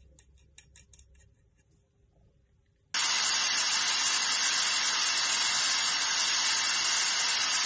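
A few light metallic clicks as an old steel bolt is set in a bench vice. About three seconds in, a wire cup brush on a corded electric drill starts scouring the bolt head to clean it up. It makes a loud, steady hissing scrub with a faint motor whine, and it cuts off abruptly at the end.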